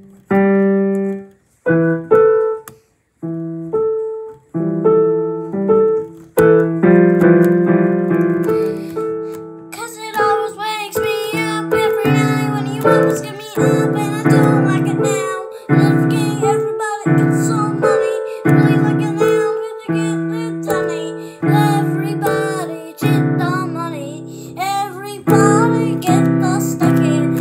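Piano played note by note, with gaps between notes at first, then fuller and busier with several notes at once from about ten seconds in.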